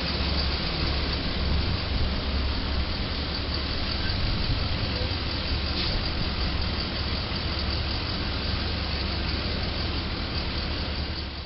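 Heavy-duty tow truck's diesel engine running steadily: a low, even drone with street noise over it.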